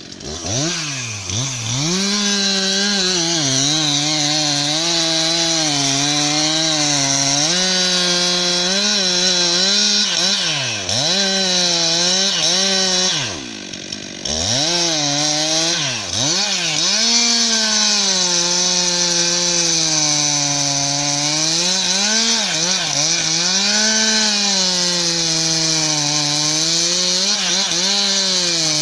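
Stihl MS 362 C two-stroke chainsaw sawing into a tree trunk to fell it, running at high revs with the pitch sagging and recovering as the chain bites into the wood. A little before halfway the throttle drops to a brief low idle, then the saw revs back up and keeps cutting.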